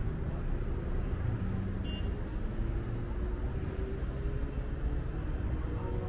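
City road traffic: a steady rumble of passing cars and buses, with one engine's pitch rising slowly as it speeds up. A short high beep sounds about two seconds in.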